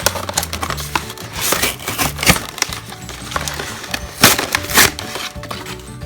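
Toy packaging being torn and crinkled open, in sharp noisy bursts, the loudest about two seconds in and again a little after four seconds, over background music.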